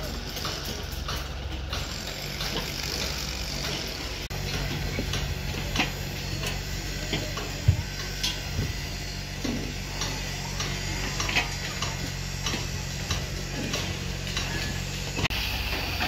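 Construction site sounds: a steady low machine hum, with irregular metallic clicks and taps of hand work on steel rebar, and one sharp knock about halfway through.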